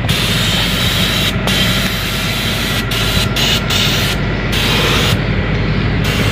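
Gravity-feed compressed-air spray gun hissing as it sprays epoxy primer, the spray cutting off briefly several times as the trigger is let go, the longest break about five seconds in. A steady low mechanical drone runs underneath.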